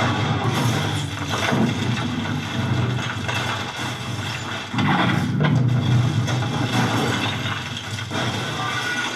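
Action-film soundtrack played through the Samsung LS03F Pro TV's built-in speakers: a dense mix of score music and sound effects over a sustained low tone, dipping briefly about halfway through and surging back.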